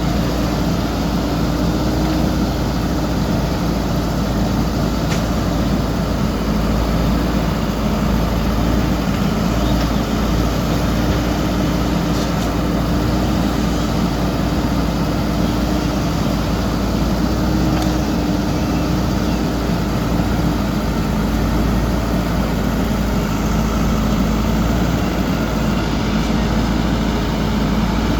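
JCB backhoe loader's diesel engine running steadily at working revs, with a few faint knocks a few seconds apart.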